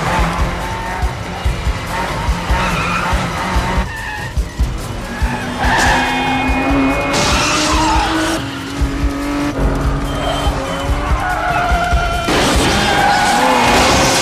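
Film car-chase sound effects: car engines racing and tyres squealing and skidding in traffic, with long held horn blasts that bend in pitch as cars pass. About twelve seconds in comes a louder burst of skidding and scraping as cars crash.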